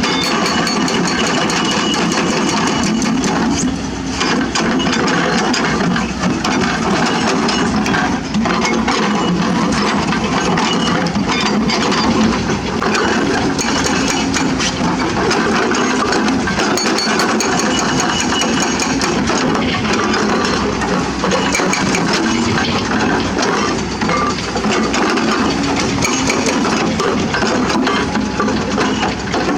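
Hydraulic excavator's diesel engine running steadily while it works, with stones and rock rattling and clinking irregularly over it.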